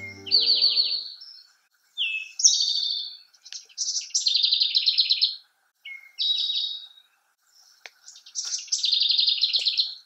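A songbird singing the same short song five times. Each song is a brief note followed by a fast, high trill of about a second. Piano music fades out in the first second.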